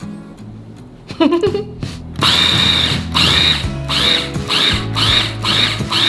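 Morphy Richards electric mini chopper starting about two seconds in and running in short pulses, about two a second, its motor whining as it chops basil, garlic and grated cheese into pesto.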